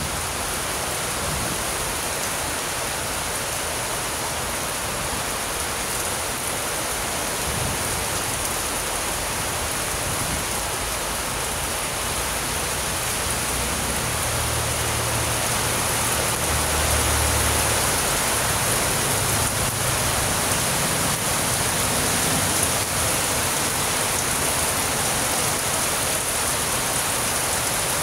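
Heavy tropical rain pouring steadily on foliage and ground, a dense, even hiss. A low rumble swells briefly about halfway through.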